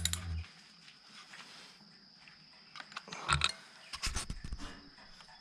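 A few scattered clicks and knocks of tools and metal parts being handled while reassembling a dirt bike, over a faint steady background hum.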